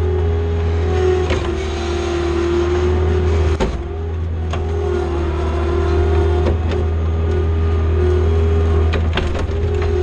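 John Deere skid steer's diesel engine running steadily under load, with a wavering hydraulic-type whine above the engine hum and scattered clanks and knocks from the machine. There is a brief dip in loudness just before 4 seconds in.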